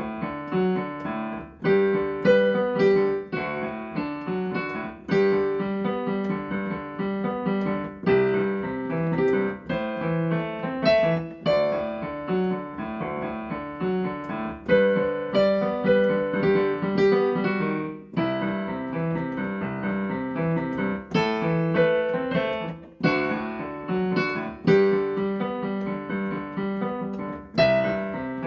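Piano-sounding keyboard music: a melody played over chords, notes struck in a steady, unhurried rhythm.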